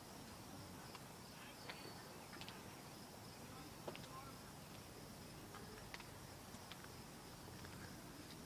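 Faint outdoor ambience: a steady high-pitched insect trill, such as crickets, with a few light clicks scattered through.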